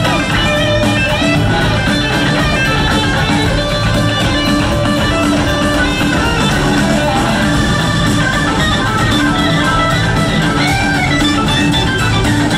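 Live rock band playing an instrumental jam, with lead electric guitar lines over bass guitar and drums, heard loud from the crowd.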